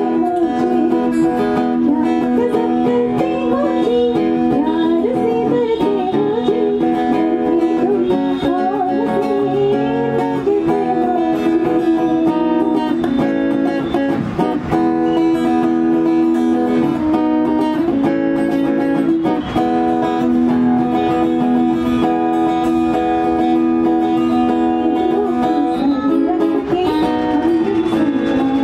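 Acoustic guitar being strummed, with a woman singing over it for roughly the first ten seconds; the guitar carries on alone through the middle stretch, and the voice comes back near the end.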